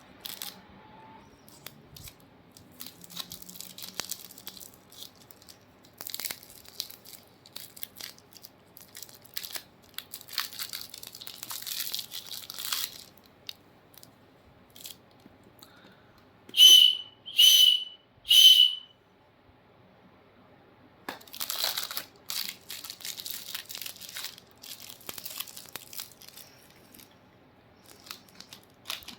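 Candy wrappers crinkling and tearing in bursts, close up. Partway through come three short, loud, high whistles in quick succession.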